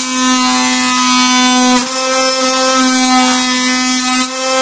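Kobalt oscillating multi-tool running at full speed and shaving down plastic brackets, a loud steady buzz whose tone dips briefly twice as the blade bites into the plastic.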